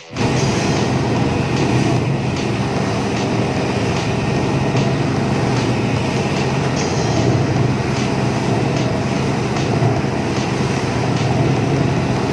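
Twin outboard motors of a speedboat running steadily at speed, a constant low drone over the rush of churning wake water.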